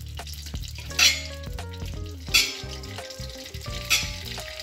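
Oil and butter sizzling in a kadhai on a gas stove, with three short, louder hisses spaced about a second and a half apart, over instrumental background music.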